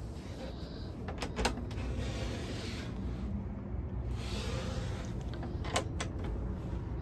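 A few sharp clicks and knocks, two about a second in and one near the end, with soft rushing noise between them over a low steady rumble.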